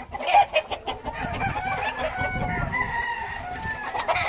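Caged fighting cocks crowing and clucking, several crows overlapping at different pitches through the middle, with a few sharp clucks near the start.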